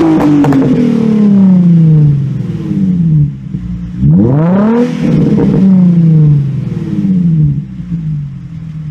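Nissan 350Z 3.5-litre V6 revved through a straight-piped ISR Blast Pipes exhaust, which gives a raspy, loud note. The first rev is at its peak at the start and falls away. A second blip about four seconds in climbs sharply and drops slowly back toward idle. A few crackles come near the tops of the revs.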